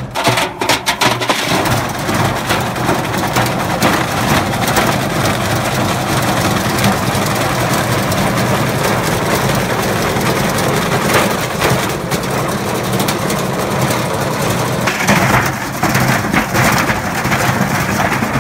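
Tricity Bendix 1000 washing machine running hard and shaking itself apart: a loud steady mechanical rumble, with a cluster of knocks in the first second or so.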